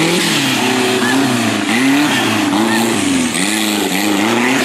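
Off-road buggy's engine revving up and down over and over, in short surges about once a second, as the buggy is driven under load through mud.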